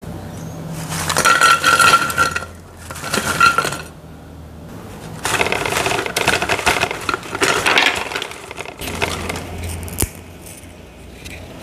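Dry, crisp crackers rattling and clinking against a hard container, in three spells of pouring or shaking, the last and longest from about five to nine seconds in.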